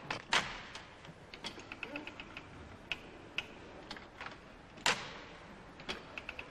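Model of Thimonier's chain-stitch sewing machine being run, its mechanism clicking and clacking irregularly, with a louder knock near the start and another about five seconds in. The machine is not stitching neatly.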